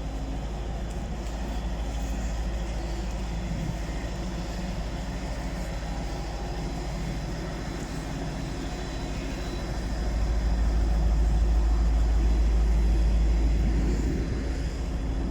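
Class 755 bi-mode train standing at the platform with its diesel power pack running, a steady drone. A low rumble swells louder about ten seconds in and eases near the end.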